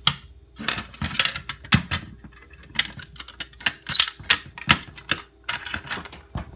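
Irregular sharp clicks and clacks, about two or three a second, over a faint steady hum.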